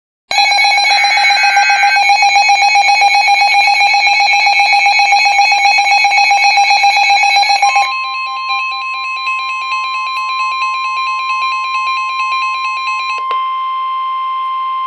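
Weather alert radio sounding a tornado warning: a loud, rapid electronic alarm beeping, then the single steady NOAA Weather Radio warning tone comes in about eight seconds in. The beeping fades out about five seconds later, leaving the tone alone.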